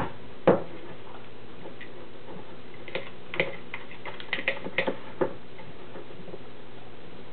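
Fork clinking and scraping against a glass while stirring thick brownie batter: one sharp click about half a second in, then a cluster of lighter clicks a few seconds later, over steady background hiss.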